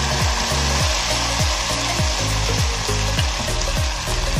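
Sabudana dosa batter sizzling on a hot, oiled dosa tawa as it is poured and spread with a ladle, a steady hiss. A regular deep beat of background music runs underneath.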